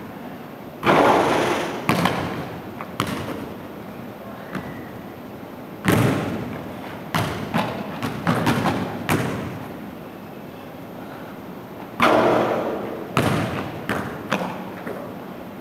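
A basketball hitting the hoop and bouncing on a hardwood gym floor, every thud echoing. There are three loud hits, about a second, six seconds and twelve seconds in, each followed by a run of quicker, softer bounces.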